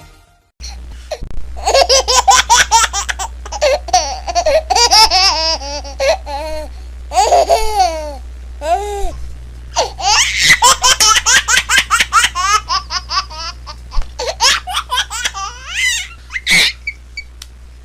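Baby laughing, in rapid repeated bursts of laughter that start about a second in, over a steady low hum.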